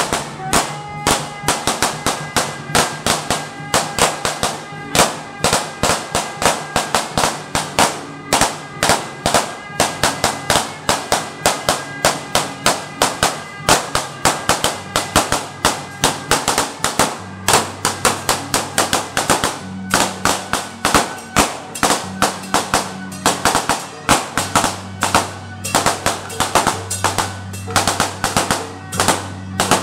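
Temple-procession percussion: hand cymbals, gong and drum struck in a fast, steady rhythm, with a sustained low droning tone underneath that shifts pitch about halfway through.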